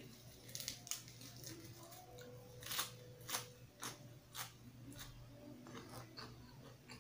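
Raw curly green-leaf lettuce being torn and chewed close to the microphone: a series of sharp, crisp crunches and crackles at irregular intervals.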